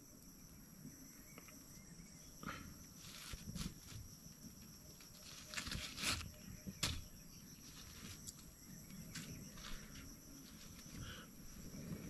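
Faint outdoor ambience of insects chirring steadily at a high pitch, with scattered light clicks and knocks, the sharpest about six and seven seconds in.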